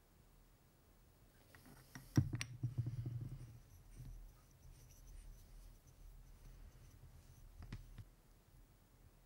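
Small metal parts handled on an engine crankshaft: a sharp click about two seconds in, followed by about a second of rubbing and scraping, then a couple more clicks near the end.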